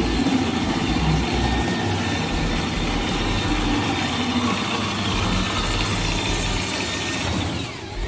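Corded electric drill spinning a wooden rod through a dowel-making cutter, the motor running steadily while the blade shaves the rod round. It slows near the end.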